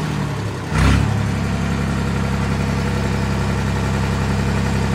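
Ford 3600 tractor engine: a brief loud burst about a second in, then running steadily at idle.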